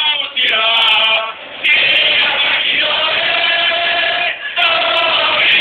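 A crowd of football supporters singing a player's chant together, mostly male voices in long held phrases with brief breaks between them.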